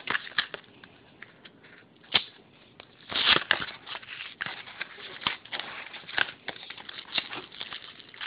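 Cardboard-and-plastic blister packaging of a trading-card booster pack being torn open: crackling and rustling, with a louder rip about three seconds in and scattered sharp crackles after it.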